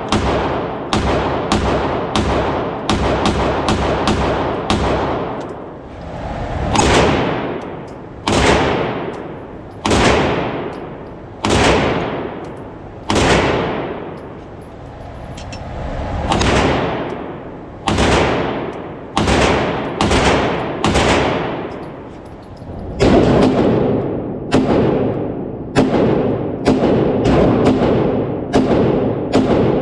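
Music with heavy, booming percussion hits over a steady pitched backing. The hits come in quick runs at first, then about one every second and a half, with swells building up before several of them.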